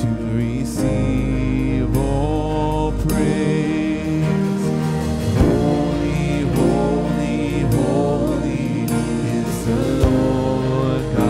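Live worship song: a man singing over strummed acoustic guitar and a Nord Stage 4 keyboard.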